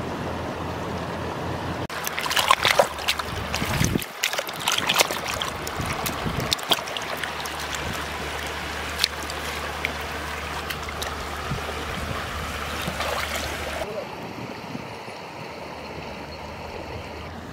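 Hands digging and scooping in wet mud and shallow water: irregular squelching, sloshing and splashing. About three-quarters of the way through it gives way suddenly to a quieter, steady hiss of water and open air.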